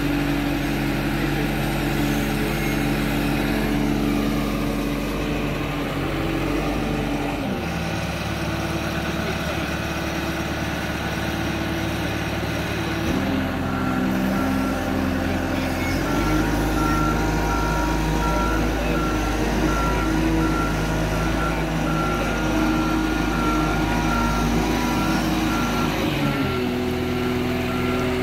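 Boat forklift's engine running, its pitch stepping down and back up several times as the boat is lifted and carried. From about halfway through, a reversing alarm beeps at a steady rate for about twelve seconds as the forklift backs away.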